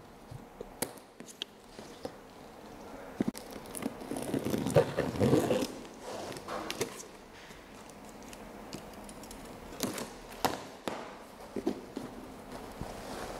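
Cardboard carton being unpacked: sharp snips and clicks of scissors cutting plastic packing straps and tape, with a louder stretch of scraping and rustling of tape and cardboard about four to six seconds in, and more scattered clicks near the end as the flaps are opened.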